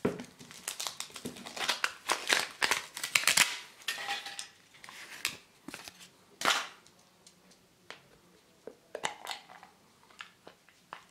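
Thin foil wrapper crinkling and tearing as it is peeled off a hollow Kinder Surprise chocolate bunny, a dense run of crackles. Then one loud sharp snap and a few smaller clicks as the hollow chocolate bunny is broken open.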